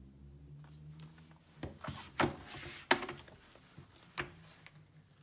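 Paper pages of a hardback photo book riffled quickly by hand, a rustle of pages with a few sharp snaps and taps, the loudest two in the middle.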